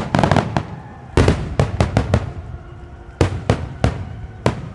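Aerial firework shells of a starmine barrage bursting in rapid succession, sharp booms with echoes trailing after them. There is a dense cluster at the start, a run of bursts about a second in, and spaced single booms near the end.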